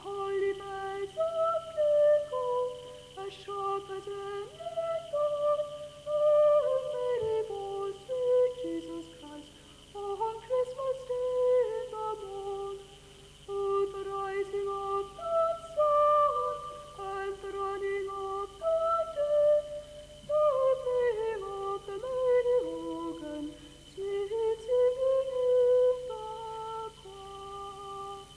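A choirboy's treble voice singing solo: a slow melody of long held notes, in phrases with short breaths between them.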